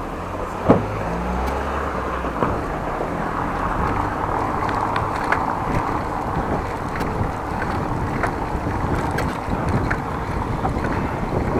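Wind rushing over an action camera's microphone during a bicycle ride, with steady road noise and a few small sharp knocks; the loudest knock comes less than a second in.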